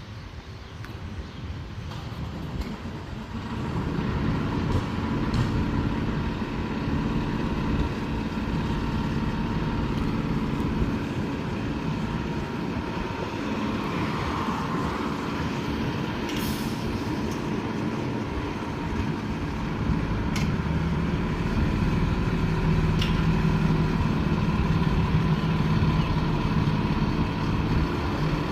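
Fire apparatus engine running and moving off, its rumble building about three seconds in and again near twenty seconds, with a brief hiss about sixteen seconds in.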